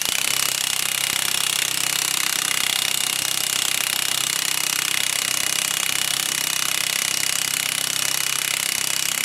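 Impact gun hammering steadily on the forcing screw of a bearing puller, trying to break loose a stubborn tapered roller bearing on a differential carrier.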